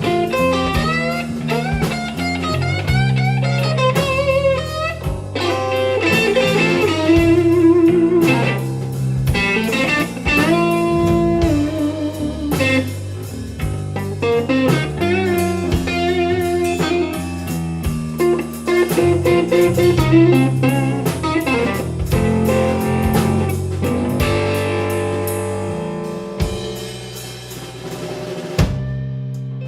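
Live electric blues trio playing an instrumental break: a lead electric guitar solo with bent, wavering notes over bass and drums. The playing thins out and grows quieter near the end.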